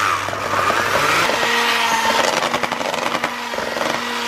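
Electric hand mixer running steadily, its twin beaters whisking cocoa powder into cake batter in a stainless steel bowl. A steady hum settles in about a second in as the cocoa blends into the batter.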